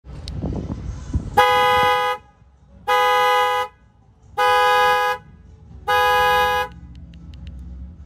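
Honda Odyssey minivan's car alarm set off from the key fob: the two-note horn sounds four times, each honk under a second long and about a second and a half apart, then stops.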